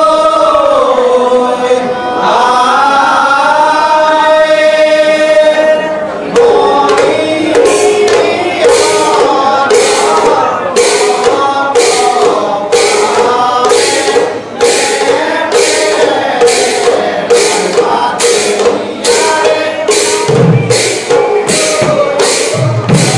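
Male voices singing a devotional chant in unison. About six seconds in, khol drums and large brass hand cymbals (taal) come in, the cymbals clashing in a steady beat about twice a second under the continuing singing.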